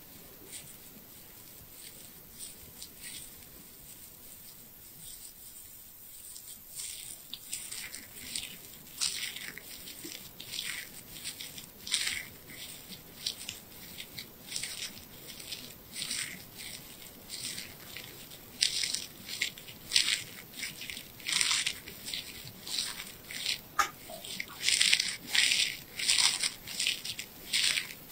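Thin wooden ear pick scraping and scratching inside an ear canal, picked up close by a wireless microphone held against the ear. Faint at first, then from about seven seconds in a run of short crackly scrapes, one or two a second, growing louder toward the end.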